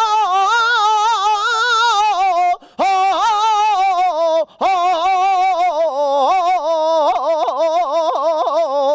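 A man singing a saeta without accompaniment: one voice holding long, wavering, heavily ornamented notes in flamenco style, breaking off briefly twice for breath.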